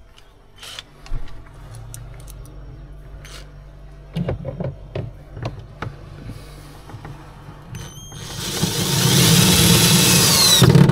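Power drill driving in another screw: scattered knocks and clicks, then about eight seconds in the motor runs loud with a whine for nearly three seconds and stops abruptly.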